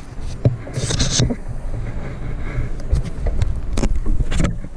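Low rumble and handling knocks on the microphone while a spinning rod and reel are held close during a fight with a hooked brown trout. A short hiss comes about a second in, and scattered clicks follow.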